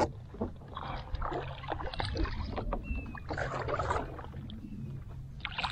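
Water splashing and sloshing around a fishing paddleboard in shallow water, in irregular bursts over a low, steady rumble, while a hooked trout is brought alongside.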